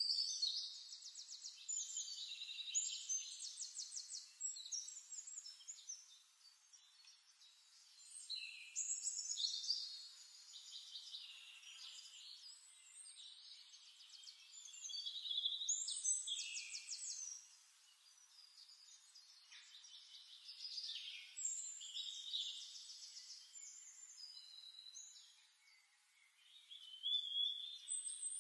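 Songbird singing: high-pitched rapid trills and gliding whistled phrases in bouts of a few seconds, with short pauses between.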